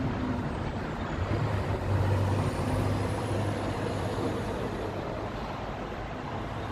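Steady rumble of a heavy truck engine, with a deeper hum that swells about a second in and eases off after a few seconds.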